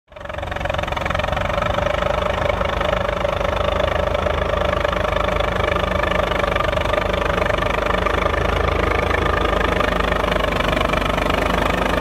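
Volvo BM 350 Boxer tractor's engine running steadily under load, pulling a three-furrow plough through the soil.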